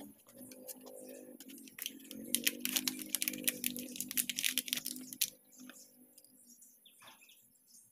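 A new part's paper wrapper being torn open and crinkled by hand: a dense run of sharp crackling clicks for about three seconds that stops a little after five seconds in, over a faint steady low hum.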